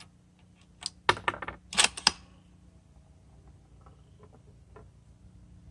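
A rifle bolt being worked: a quick run of sharp metallic clicks and clacks, loudest about two seconds in, as the bolt is lifted, drawn back and run home, followed by a few faint ticks.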